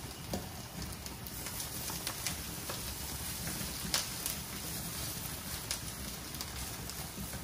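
Bok choy sizzling in a hot, oiled wok as it is turned for stir-frying, a steady sizzle with scattered sharp crackles and pops.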